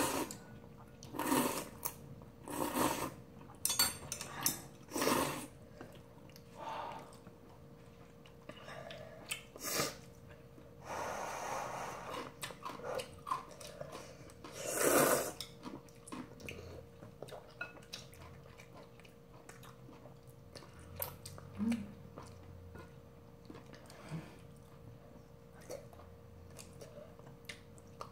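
Instant ramyeon noodles being slurped from bowls of soup: a series of short, loud slurps in the first half, one drawn out longer, then quieter chewing with light clicks of chopsticks and a spoon against ceramic bowls.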